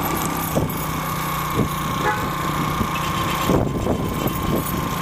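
Motorcycle running along a street, its engine and wind noise on the microphone, with a steady high tone held for about three seconds that stops about three and a half seconds in.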